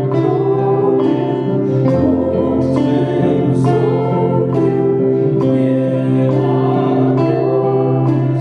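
Singing in long held notes, accompanied by a strummed acoustic guitar.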